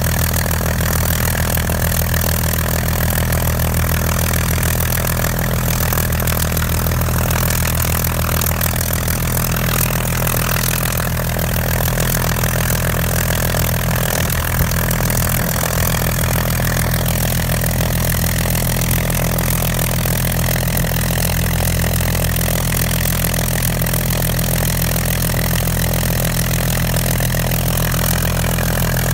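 Rolls-Royce Griffon V12 engine of a Spitfire FR XIV idling steadily, propeller turning, with an even, unchanging beat.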